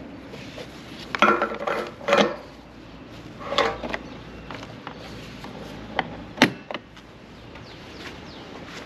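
Fuel filler cap of a Honda Forza 350 scooter handled with a gloved hand: a run of plastic clattering and clicking, then a single sharp click about six and a half seconds in.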